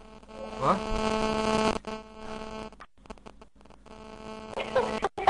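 Steady electrical hum picked up over a voice-chat microphone, strongest in the first two seconds, with a short rising sound about a second in and several brief audio dropouts.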